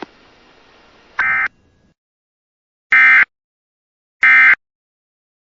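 Emergency Alert System end-of-message (EOM) SAME data bursts: three short, buzzy digital warbles a little over a second apart, closing the alert.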